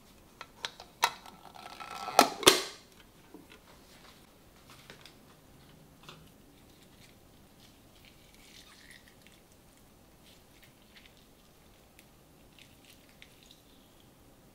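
A person eating: several sharp clicks of tableware and a short louder burst of noise about two seconds in, then faint small clicks and chewing.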